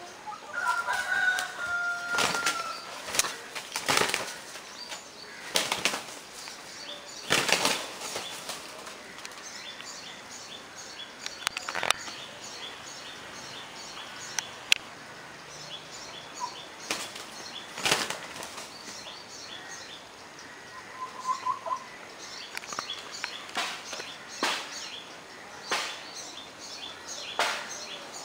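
Fighting roosters' wings flapping in short, loud bursts at irregular intervals, a dozen or so times. A brief pitched call sounds near the start.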